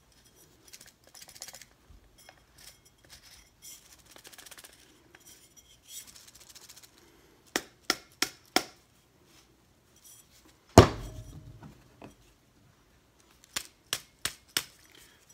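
Suppressor tube packed with loose metal eyelets being tipped and tapped to seat them. Faint scraping comes first, then groups of sharp metallic clicks with one loud knock between them.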